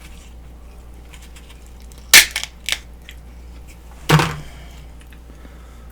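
Crab shell cracking close to the microphone: a sharp crack about two seconds in, a smaller one just after, and a longer crunch about four seconds in.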